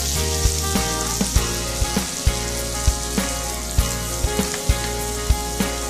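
Chopped onion and tomato sizzling in hot oil in a frying pan and stirred with a wooden spatula, with background music playing.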